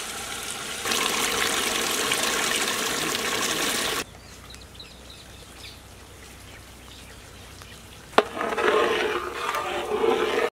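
Tamarind juice poured from a steel bowl through a perforated steel skimmer into a large pot, splashing loudly for about three seconds before it drops away to a quieter trickle. Just after eight seconds in there is a sharp metallic click, then uneven sloshing of liquid in the pot.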